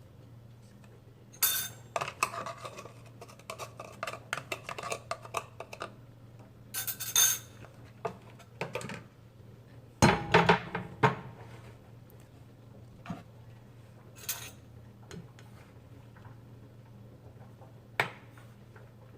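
Dishes and cutlery clinking and clattering as kitchenware is handled, in irregular knocks and clinks, loudest in a cluster about ten seconds in. A low steady hum runs underneath.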